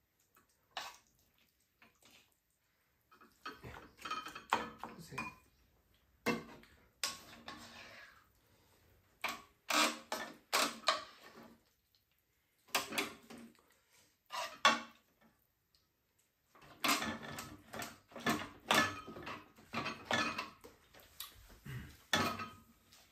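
Spoons and chopsticks scraping and clinking against a frying pan and ceramic bowls as food is scooped out and stirred. The clatter comes in irregular clusters with short quiet gaps between them.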